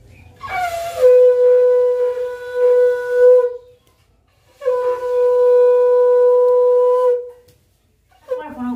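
Conch shell (shankha) blown in two long steady blasts of about three seconds each, with a short pause between them. The first blast slides down in pitch as it starts. It is the auspicious conch call sounded during the Bhai Phota forehead-marking rite.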